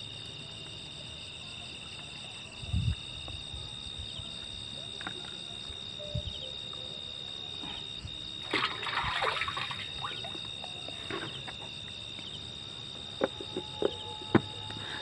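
Liquid spray mix being poured into a knapsack sprayer's plastic tank, trickling and sloshing, with a louder gush about halfway through and a few knocks near the end.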